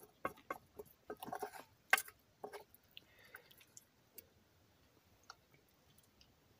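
Scattered faint clicks and crunches at an uneven pace, the loudest about two seconds in.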